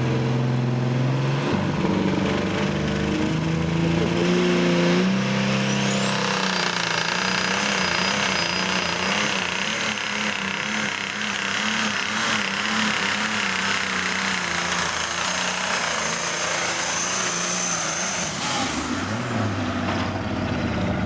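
Modified diesel pulling tractor working under full load on a pull: engine notes step up over the first few seconds, then a high, steady whistle comes in about six seconds in and holds over the engine until both wind down near the end.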